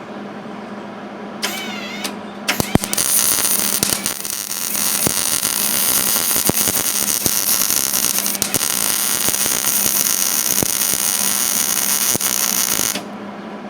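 MIG welder arc laying a bead on thin sheet-metal truck bed panel, filling large holes with the wire feed speed turned up: a short burst about a second and a half in, then a steady crackling sizzle with sharp pops for about ten seconds that cuts off suddenly near the end. A steady electrical hum sits underneath.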